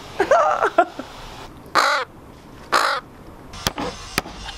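A baby crow calling with repeated harsh caws, three or four in the first three seconds, then a few sharp clicks or knocks near the end.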